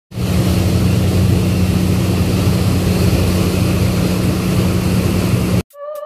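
A ship's steady low engine drone under the rush of the propeller wake churning behind the stern. It cuts off suddenly about five and a half seconds in, and music starts just after.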